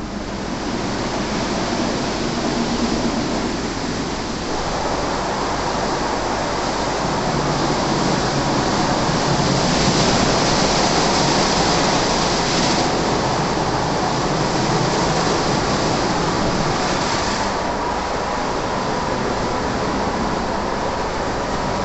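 WashTec SoftCare 2 Pro gantry car wash in its brush wash: the spinning roof and side brushes scrub the car under water spray, giving a steady rushing, splashing noise. The hiss of the spray grows louder for several seconds just past the middle, then eases back.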